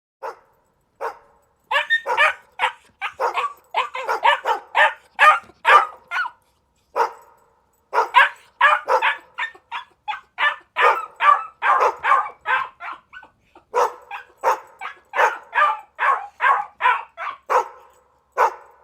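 A dog barking over and over, two to three barks a second, in runs broken by a couple of short pauses.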